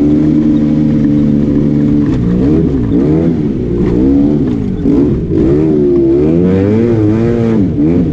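Arctic Cat Wildcat Trail 700 side-by-side engine running loud and steady, then revving up and down repeatedly as the throttle is worked on and off from about two seconds in.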